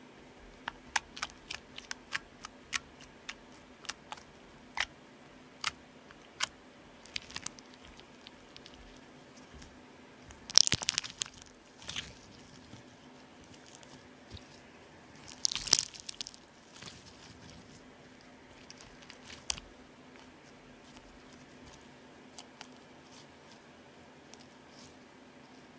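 Clear borax slime worked by hand close to a microphone: first a string of sharp, sticky clicks and pops as it is tapped on a glass tabletop, then two louder crackling bursts about five seconds apart as it is squeezed and kneaded between the hands, with a few softer crackles after.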